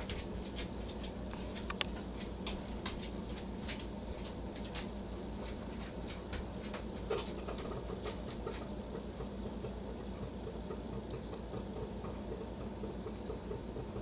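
Pileated woodpecker pecking and picking at rotting wood: irregular sharp clicks, a few a second, that stop a little past halfway.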